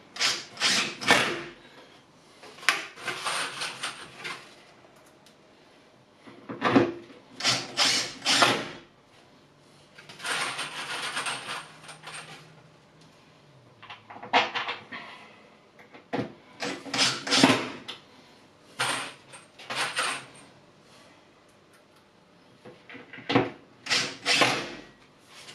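A power drill driving chipboard screws into a melamine cabinet base in short runs of a second or two, with knocks and clatter from handling the cabinet legs in between.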